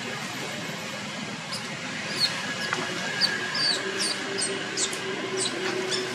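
Young long-tailed macaques squealing during a play-fight: a rapid string of short, high-pitched, falling squeaks that starts about a second and a half in.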